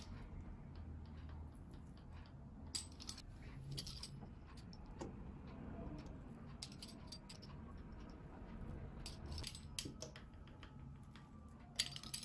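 Pizza cutter wheel rolling through raw dough on a wooden tabletop: faint, light clicks and small metallic rattles from the wheel, coming in small clusters every couple of seconds as each cut is made.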